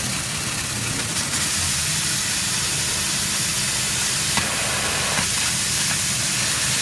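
Laser cutting machine running: a steady hiss over a low hum.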